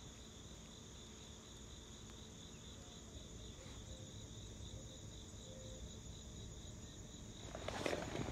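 Faint, steady high-pitched chorus of insects chirring. Near the end comes a short spell of rustling and handling noise.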